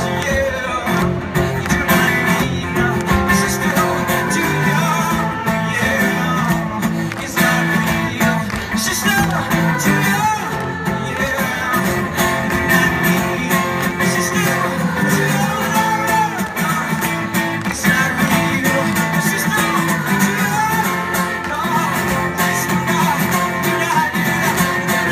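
Live acoustic guitar strumming steadily, with singing over it, as heard from the audience.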